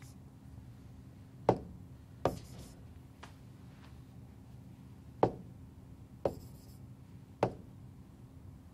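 About five sharp single taps, spaced irregularly one to three seconds apart, over a faint steady hum.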